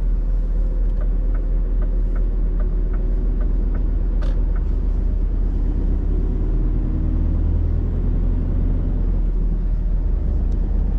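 Semi-trailer truck on the move: steady low engine and road rumble. A run of light, evenly spaced ticks, about three a second, comes for a few seconds near the start.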